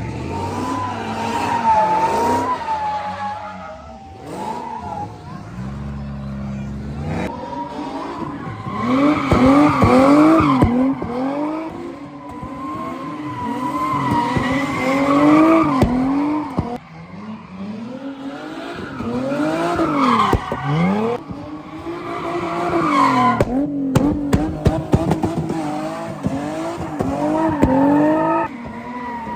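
Car engine revving hard up and down again and again while its tires squeal, as in a drift or donuts. It is loudest about ten and fifteen seconds in.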